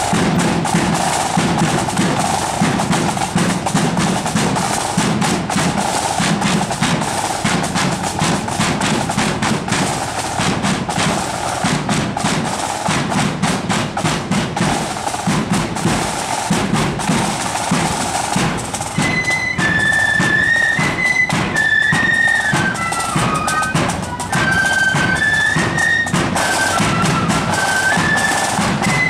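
Marching flute band on parade: snare and bass drums beating out a march with rolls, then flutes joining about two-thirds of the way through with a high, shrill melody over the drums.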